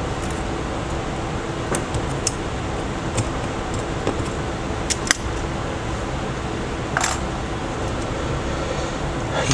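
Steady machine hum, like a fan, with scattered small clicks and taps and a short scraping sound about seven seconds in.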